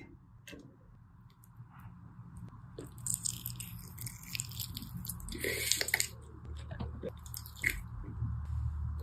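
Someone biting into and chewing peri peri chicken, with irregular crunches close to the microphone.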